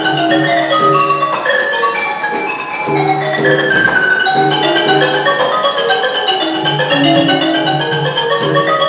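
Ranat ek, the Thai boat-shaped xylophone, playing a fast, continuous run of struck wooden notes in a classical solo. Under it, small ching cymbals tick a steady beat about twice a second and a hand drum gives low, recurring strokes.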